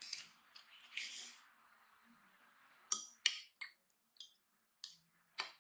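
Kitchen utensils giving a run of about six sharp clicks and taps in the second half, after a soft background hiss with two brief swells at the start.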